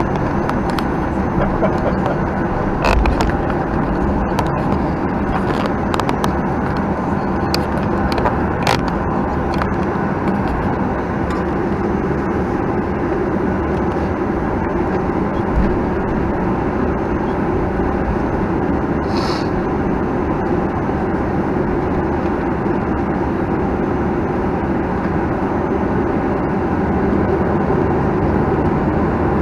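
Cabin noise of a Boeing 737-900ER taxiing: its CFM56-7B jet engines running at idle over a steady rumble from the wheels rolling on the taxiway, with a few knocks and rattles in the cabin.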